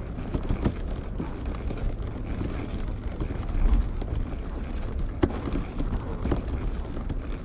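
Outdoor street ambience: a steady low rumble of wind on the microphone with scattered light clicks and knocks.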